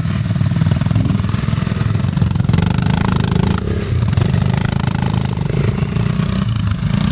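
An engine running steadily with a fast, even pulse, close to the microphone.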